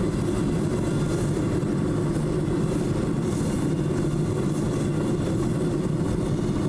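Aluminum-melting foundry furnace running with a steady roar. There is no popping: the aluminum pans thrown into the pot have burned down and the melt is clearing.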